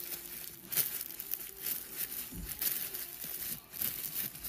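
Clear plastic wrapping crinkling in irregular crackles as gloved hands handle it.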